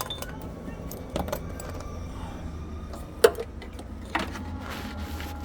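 A few sharp metallic knocks and clinks of hand tools at work on the oxygen sensor, the loudest about three seconds in, over a steady low hum.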